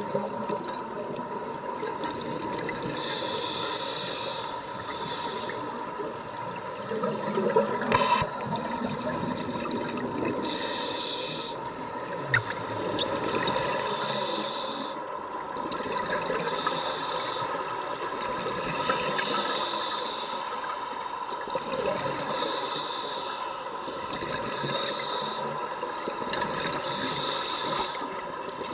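Scuba regulator underwater: bursts of exhaled bubbles every few seconds between hissing breaths, over a steady thin tone. Two sharp knocks stand out, about a third and halfway through.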